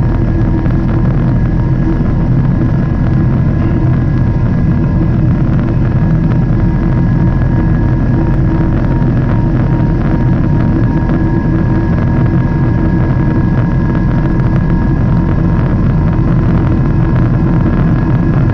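Steady, loud jet-engine and rushing-air noise inside an airliner cabin in flight, with a few thin steady tones running through it.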